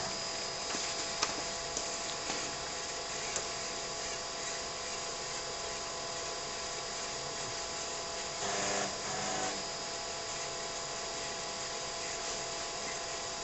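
TRS-80 Model 16B computer running with its 8-inch floppy drive reading a boot diskette: a steady motor hum and whine, a few sharp clicks in the first three seconds or so, and a brief buzzing grind about two-thirds of the way through as the drive works.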